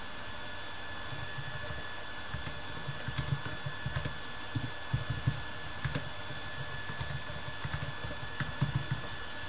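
Typing on a computer keyboard: irregular runs of key clicks, as text is entered, over a faint steady electrical whine.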